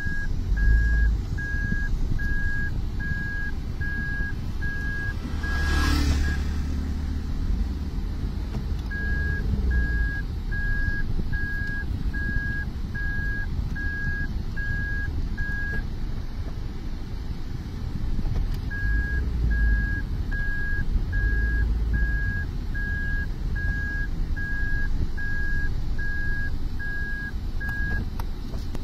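Car's reverse warning beeper going inside the cabin, a steady high beep about twice a second in three runs with short pauses, over the low rumble of the car's engine. A brief burst of hiss about six seconds in.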